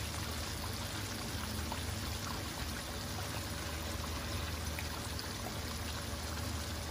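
Flour-breaded chicken pieces frying in bubbling oil in a wok: a steady sizzle, over a low steady hum.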